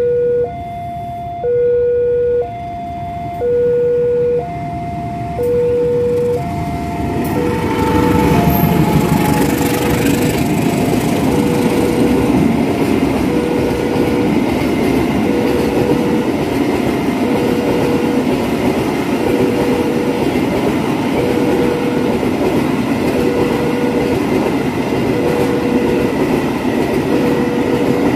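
Level-crossing warning alarm sounding an alternating two-note tone over and over. About eight seconds in, a CC 201 diesel-electric locomotive arrives, and its freight train of tank wagons and flat wagons runs past at speed; the train becomes the loudest sound while the alarm carries on.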